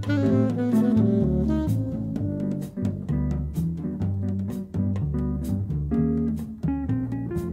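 Jazz played on a plucked double bass and a saxophone, the bass notes moving steadily under the saxophone's melody.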